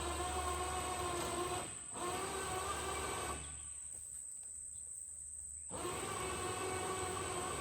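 A machine engine running steadily with a steady whine over a low hum. The sound drops away abruptly for about two seconds midway, then comes back unchanged.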